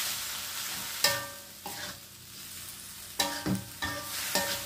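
A spatula scraping and clanking against a metal wok while mushrooms are stir-fried, over a steady sizzle. There is one clank about a second in and a quick run of several near the end, each leaving the wok ringing briefly.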